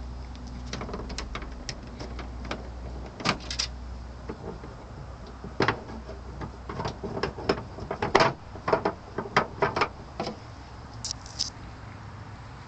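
2002 Nissan Altima 2.5S's four-cylinder QR25DE engine running with a steady low hum that stops about three seconds in. Irregular clicks and knocks run through much of the stretch.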